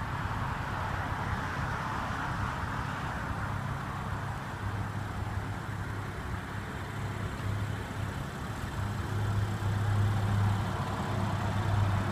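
A car engine idling steadily: a low, even hum over a hiss of outdoor background noise. The hum grows louder near the end.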